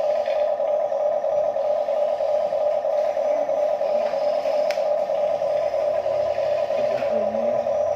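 Small electric motor buzzing steadily at one mid pitch with a fast fluttering pulse, and a single sharp click a little past halfway.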